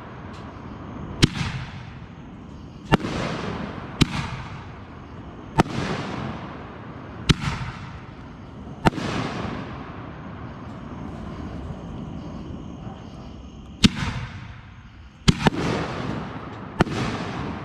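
Consumer aerial fireworks going off in a series of about nine sharp bangs, most about a second and a half apart, with a pause of several seconds before the last few. Each bang has a crackling tail that dies away over about a second.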